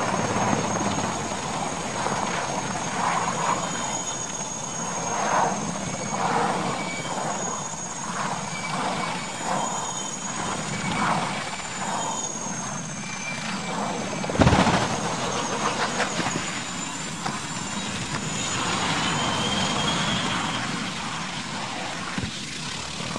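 Tandem-rotor helicopter running close by: a steady high turbine whine over the rhythmic beat of its rotors. A single sudden bang comes about two-thirds of the way through.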